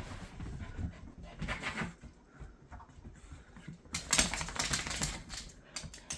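A dog just in from the snow, moving about with rapid clicking and scuffling sounds, in a dense flurry about four seconds in.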